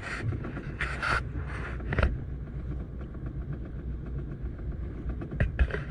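Steady low rumble of wind and boat noise on open water, with brief hissing bursts near the start and about a second in, and short knocks about two seconds in and near the end.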